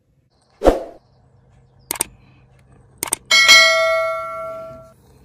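Subscribe-button animation sound effect: a swish, two sharp clicks, then a notification bell chime that rings out and fades over about a second and a half.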